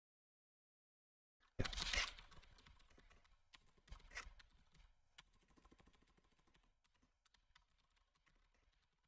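Typing on a computer keyboard, starting about a second and a half in. A loud flurry of keystrokes comes first, then a run of quieter, uneven key clicks that fades out near the end.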